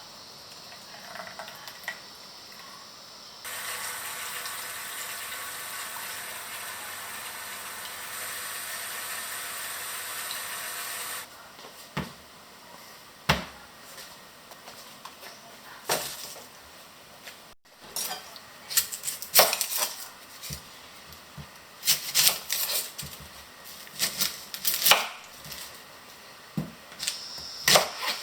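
Kitchen food preparation: a steady rushing noise that switches on and off abruptly, lasting about eight seconds, then a run of irregular sharp knocks and clacks of utensils and a knife on a cutting board and dishes.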